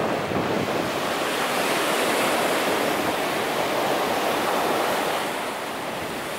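Small waves breaking and washing up a sandy beach: a steady rush of surf that swells and then eases a little near the end.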